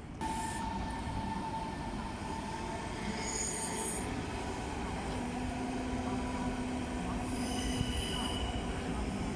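Train running through a station with a steady rumble and several held tones. High-pitched wheel squeal comes in briefly about a third of the way in and again near the end.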